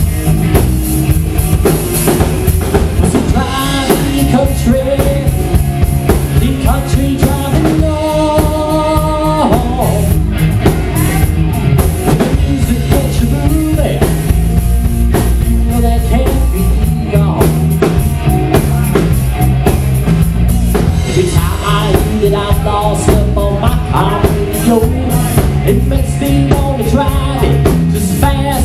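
Live country-rock band playing loud between sung verses: electric guitar over bass guitar and a drum kit.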